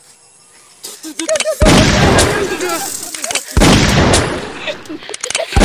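Battle sound effects of gunfire and explosions: a few sharp gunshot cracks, then three heavy blasts about two seconds apart, each rumbling away.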